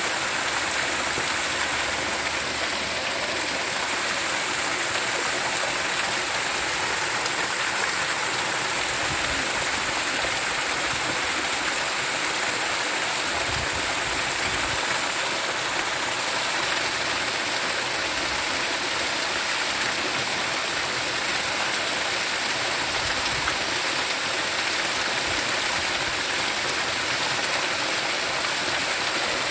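Flowing water rushing steadily, an even unbroken hiss with no separate events.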